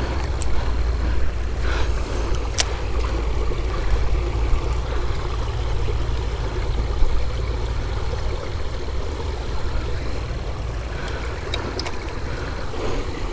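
Steady rushing of flowing creek water, heavy in the low end, with a few faint clicks.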